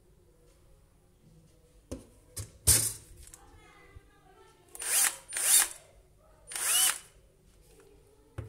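Cordless drill run in several short bursts of about half a second, its bit pressed against a steel tube to spot-mark the hole positions.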